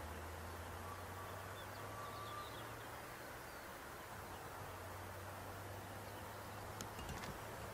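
Faint open-air ambience: scattered bird chirps and insect buzzing over a steady low hum, with a few short clicks near the end.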